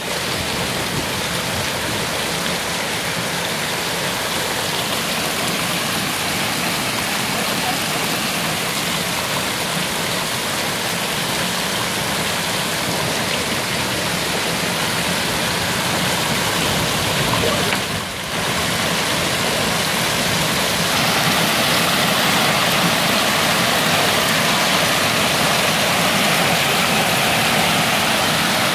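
Hailstorm: hailstones and rain pelting down hard, a dense steady hiss and patter of hail striking the ground and surroundings. It dips briefly partway through, then comes back louder.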